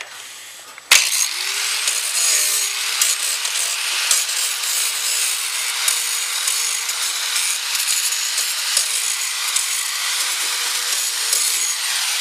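Electric angle grinder switched on about a second in, its motor whine rising as it spins up and then holding steady, while the wheel grinds the edge of a steel rotary mower blade to sharpen it, a steady hiss of metal being ground.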